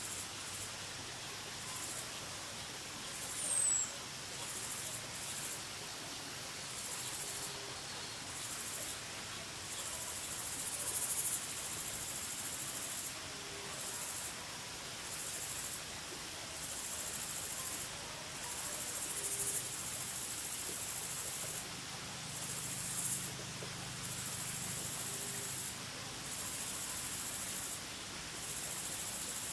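Forest ambience at dusk: insects trilling high-pitched in repeated bouts, each lasting about a second with short gaps between. A brief high chirp falls in pitch about three and a half seconds in, and faint short low calls come every few seconds.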